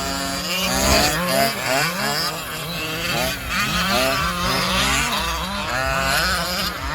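Three gas-powered 1/10-scale RC trucks' small engines racing together, their overlapping high buzzing pitches rising and falling over and over as the throttles are worked.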